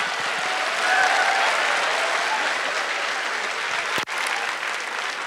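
Studio audience applauding and laughing in response to a stand-up joke. The applause swells about a second in and then slowly dies away.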